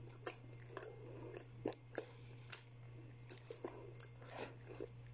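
A person eating fried chicken close to the microphone: faint, irregular crunches and mouth sounds from chewing, and crisp skin and meat being pulled apart by hand. A steady low hum runs underneath.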